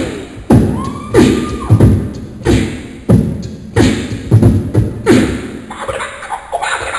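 A man beatboxing into a microphone, amplified through stage speakers: a steady beat of deep kick-drum sounds about every two-thirds of a second, with sharper snare-like hits and short vocal glides between them.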